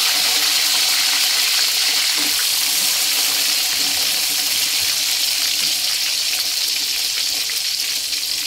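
Tomato wedges frying in hot cooking oil in a wok: a steady sizzling hiss that eases slightly toward the end.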